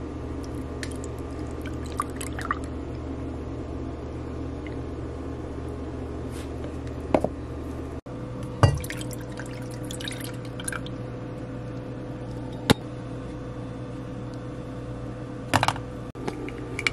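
Milk poured from a small carton into a mug, with a few sharp clicks and knocks, over a steady low hum.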